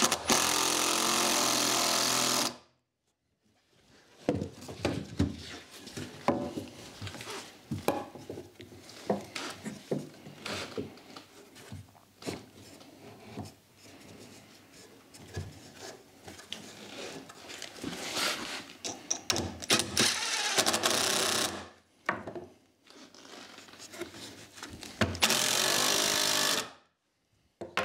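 Cordless drill/driver running in steady bursts, driving screws into a 2x4 pine frame. There is a long run at the start and another near the end, with knocks and clatter of timber and tools between them.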